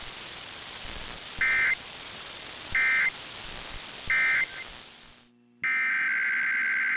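Emergency Alert System SAME digital data tone: three short buzzing bursts about 1.3 s apart over radio static, the end-of-message code that closes the test. After a cut, a longer burst of the same data tone starts the header of the next alert.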